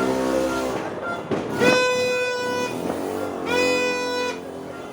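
A horn sounding in repeated steady blasts of about a second each: a lower toot at the start, then two longer blasts at a higher pitch. New Year's Eve noisemaking.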